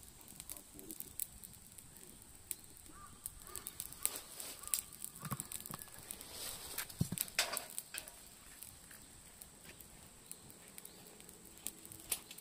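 Cicadas drone steadily on a high note, with scattered clicks and knocks over them, the loudest about halfway through, and a few faint chirps near three seconds in.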